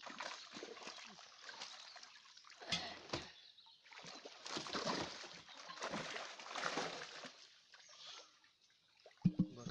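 Pond water splashing and sloshing in irregular waves, with a sharper splash about three seconds in. A brief voice comes in near the end.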